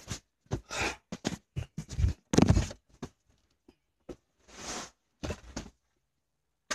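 Handling noise: irregular rustles, clicks and bumps as a phone and loose things are moved about inside a car, with a louder bump about two and a half seconds in and a short rustle near five seconds.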